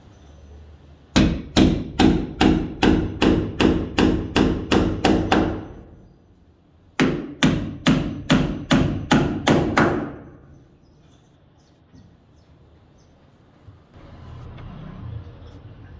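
Hammer driving a nail into wood: a run of about eleven steady blows, a pause of about a second and a half, then about seven more, a little over two blows a second, each with a short ring.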